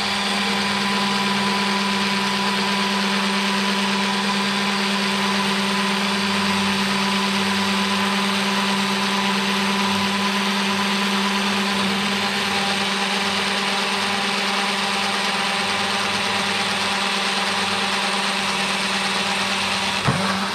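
Parkside cordless angle drill running steadily under load while boring into a clamped wooden board, driven by a larger, more powerful Parkside battery that gives it more torque. The motor stops near the end.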